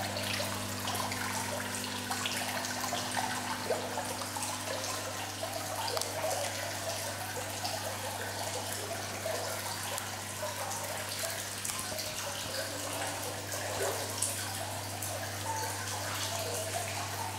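Water thread curtain fountain: water running down rows of vertical threads and falling into a stainless-steel trough, a continuous patter of small drips and trickles. A steady low hum runs underneath.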